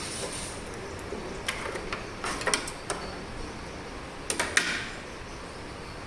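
An electronic sewing machine's steady running stops about half a second in. Then come two groups of sharp clicks and clacks as the machine and cloth are handled.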